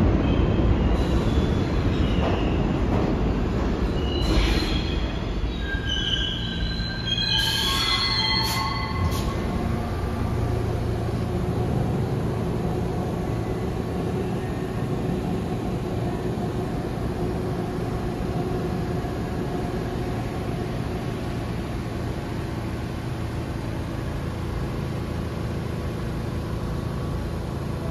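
New York City subway train on the rails, wheels squealing in scattered high-pitched squeals during the first ten seconds or so. It then settles into a steady rumble with a faint hum that slowly fades.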